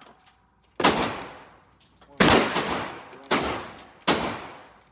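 Four gunshots about a second apart, each followed by a long echoing decay.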